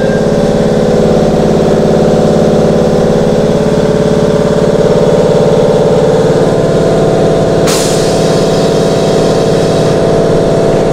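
Air compressor of a stopped Keihan train running steadily with a fast, even chugging, echoing in the underground station. About eight seconds in, a hiss of released air lasts about two seconds.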